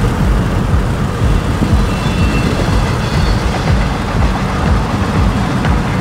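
Steady low rumble of a moving vehicle, even in level with no clear starts or stops.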